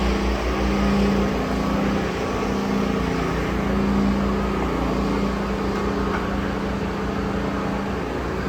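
Steady urban traffic noise: a motor vehicle engine humming, with a low, even rumble.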